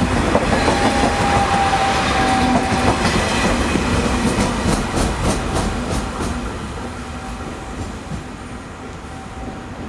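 TGV POS high-speed train rolling past and moving away, a steady rolling noise with a faint whine in the first few seconds. A quick run of wheel clatter over the rail joints comes as the end power car passes, about five seconds in. The running noise then fades as the train draws away.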